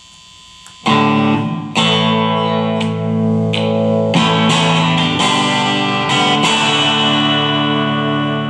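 Electric guitar, a Chinese copy of a Fender Stratocaster, played through an amp with the gain turned up, heard through a phone microphone. Amp hum for about the first second, then chords struck and left to ring out, with a new chord every second or so.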